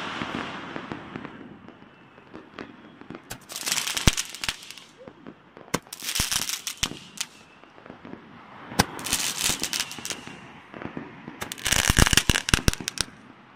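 Fireworks bursting into sparks close by, in four volleys of rapid sharp cracks about every three seconds, the last one the loudest.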